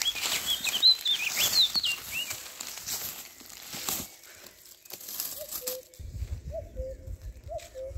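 Small birds chirping quickly over a rustling, crackling noise for the first few seconds. Then a low two-note bird call repeats about once a second over a low rumble.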